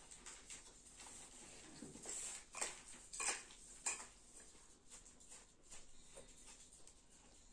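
Spoon stirring and scraping through a bowl of rice-and-vegetable dolma stuffing, with scattered clinks against the bowl; a few louder clinks come between about two and four seconds in.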